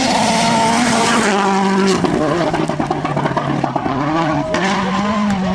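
Rally car engine running hard, its note stepping down about a second in, then dipping and climbing again near the end.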